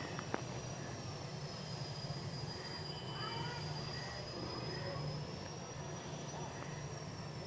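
Steady outdoor background: a low rumble under a continuous high, thin whine that slowly rises and falls in pitch, with a sharp click just after it begins.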